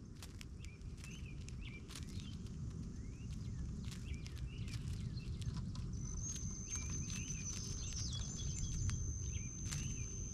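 Small birds around a feeder giving many short, quick chirps over a steady low background noise. A thin, steady high-pitched tone comes in about six seconds in and holds to the end.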